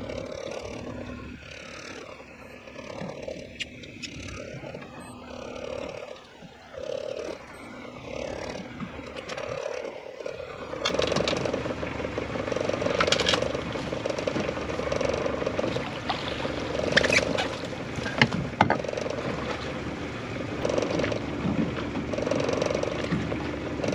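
Fishing reel being cranked to bring in a hooked fish, a rhythmic whir repeating about once a second, over a steady background that gets louder about halfway through. Several sharp knocks in the second half.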